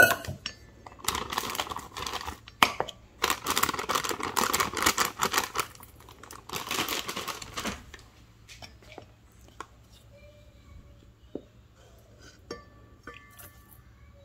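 A plastic bag of dry pancake mix crinkling and rustling in several spells as the mix is poured out into a measuring cup. This is followed by a few light taps and scrapes of the cup and a spatula against a stainless steel bowl.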